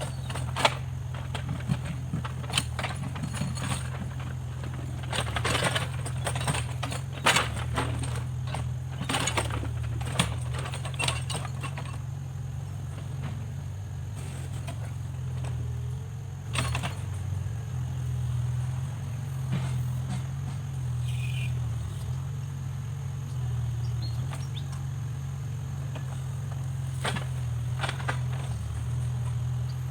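Backhoe loader's diesel engine running steadily, with intermittent sharp knocks and crunches, most of them in the first half.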